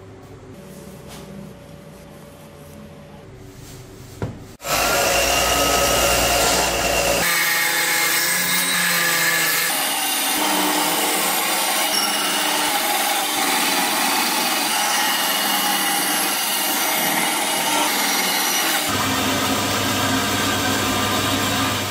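Bandsaw cutting through a wooden block, a loud steady sawing noise that starts abruptly about four and a half seconds in after a quieter stretch.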